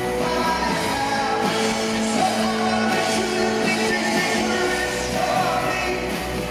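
Live rock band playing a song, with a singer's voice over guitars and bass.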